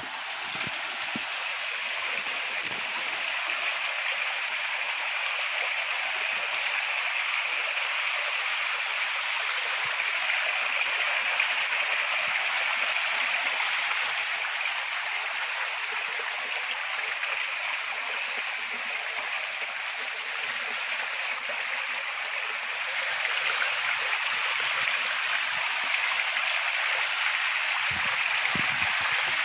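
Creek water running steadily, a continuous rush of flowing water that swells over the first couple of seconds and then holds.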